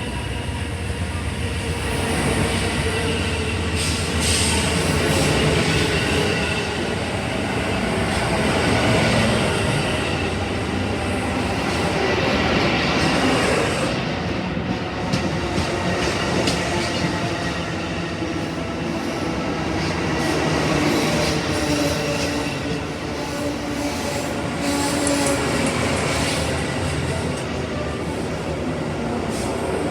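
Amtrak Auto Train cars rolling on the rails: a steady rumble with faint squeal from the steel wheels.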